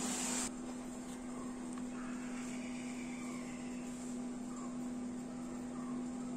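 A steady low hum, with a brief hiss in the first half second and faint short high calls about once a second.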